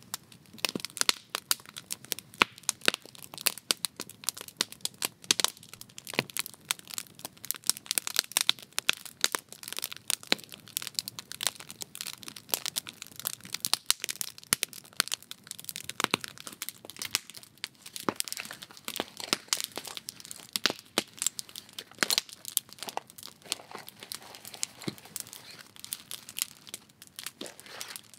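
Wood campfire crackling and popping, a dense run of irregular sharp snaps.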